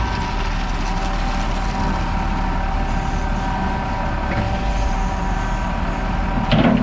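Heavy diesel farm machine, a loader working the silage bunker, running steadily with a deep rumble and a high whine over the engine.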